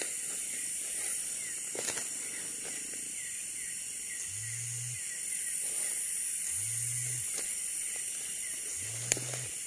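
Night-time tropical forest insect chorus, a steady high-pitched shrill with a fast run of small chirps. A low call sounds three times, about two seconds apart. A few sharp clicks come near the end.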